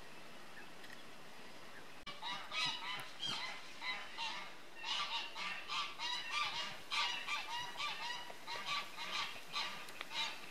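Geese honking, a dense run of repeated calls several a second that begins abruptly about two seconds in after a faint steady hiss.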